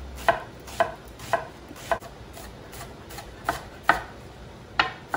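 Kitchen knife dicing an onion on a wooden cutting board: a regular series of sharp knocks of the blade on the board, about two a second, a few of them softer.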